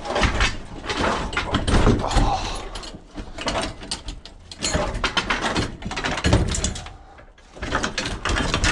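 Irregular knocks, clatter and scraping of metal being handled, with several sharp bangs.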